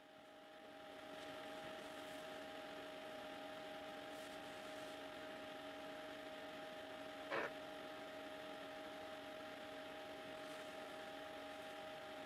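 Spectrophotometer running a wavelength scan: a steady hum with a few held tones, fading in over the first second or so, and one brief tick about seven seconds in.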